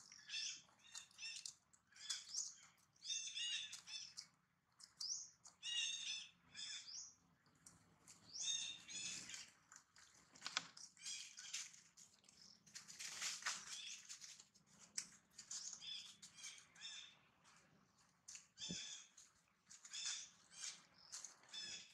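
Small birds chirping, faint, with short high calls repeating every second or so.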